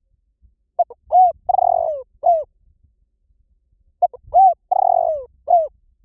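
Spotted dove cooing: two identical phrases about three seconds apart, each a few short coos with a longer, rougher coo in the middle.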